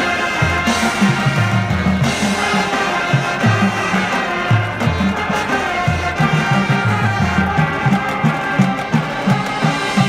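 Marching band playing, brass over a rhythmic bass line of short low notes.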